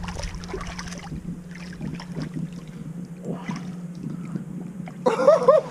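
Steady low hum with scattered light knocks and handling noises aboard a small fishing boat. Near the end, a run of high, wavering whine-like calls begins.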